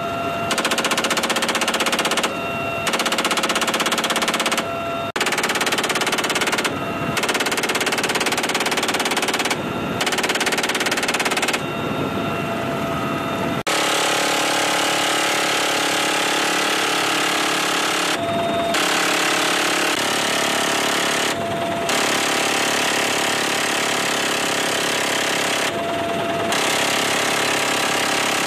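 Helicopter door-mounted machine guns firing in repeated bursts, some a few seconds long, with short pauses in which the helicopter's steady turbine whine is heard.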